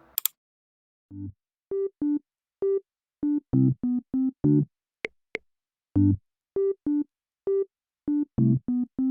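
Background music: a light synthesizer melody of short, separate notes with brief silent gaps between them.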